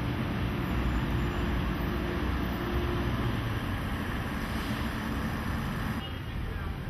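Outdoor street ambience: a steady low rumble of engines and traffic, with a faint hum that comes and goes. It drops abruptly to a quieter rumble about six seconds in.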